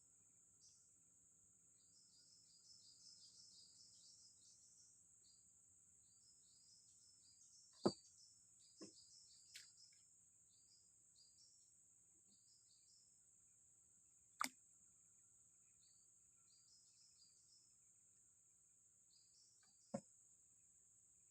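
Faint outdoor ambience of insects and birds: a steady high-pitched insect drone with clusters of short high chirps. A few sharp clicks or taps stand out, about 8, 14 and 20 seconds in.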